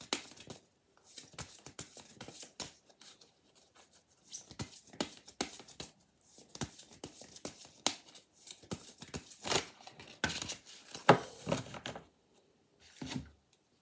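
A deck of oracle cards being shuffled by hand: a run of quick papery slaps and rustles, thickening into louder bursts late on, then stopping shortly before the end.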